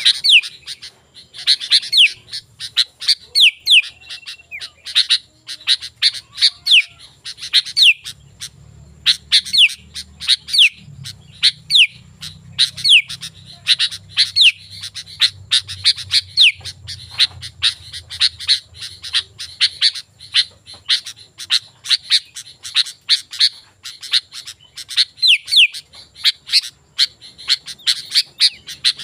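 Sooty-headed bulbul singing busily: a rapid, unbroken run of short chirping notes, many of them quick downward-sweeping whistles.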